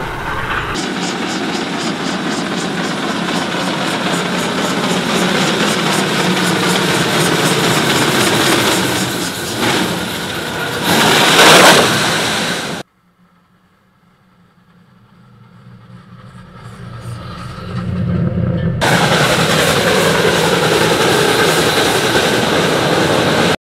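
Steam locomotive 423.009 working a train: steady, rapid rhythmic exhaust chuffing, with a loud rush of noise a little after ten seconds in. After a sudden cut to near quiet, the locomotive is heard again, growing louder over several seconds as it approaches and staying loud as it passes.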